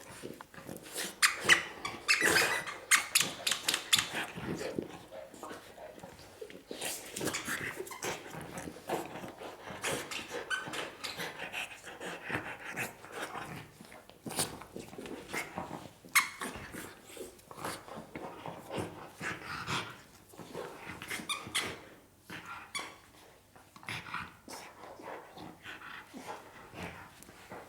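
Dogs at play with a squeaky toy: repeated short squeaks amid scuffling and clicks, with occasional low growls.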